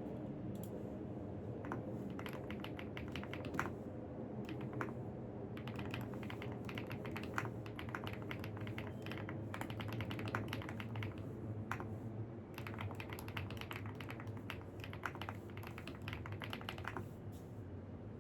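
Computer keyboard typing in quick runs of keystrokes with short pauses between them, over a steady low background hum.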